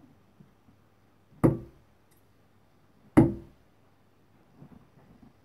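Two steel-tip darts striking a Winmau bristle dartboard, one sharp thud each, about 1.7 seconds apart.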